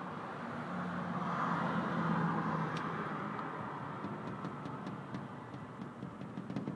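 A vehicle passing by: a steady rumble with a low hum that swells about two seconds in and then fades. From about four seconds in comes a run of faint small clicks.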